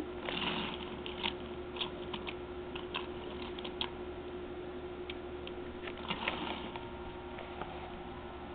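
Toy electric trains running on their track: a steady hum with irregular light clicking and rattling from the wheels on the rails.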